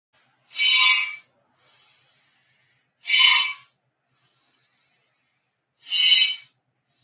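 A person doing bhastrika pranayama's forceful yogic breathing: three loud, short breaths about two and a half seconds apart, with quieter, longer breaths between them that carry a faint whistle.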